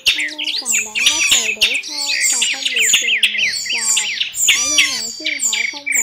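Several thrush species calling at once in a dense, overlapping mix of high chirps, sweeping whistles and trills, with lower bending calls underneath: a compiled thrush-call lure track.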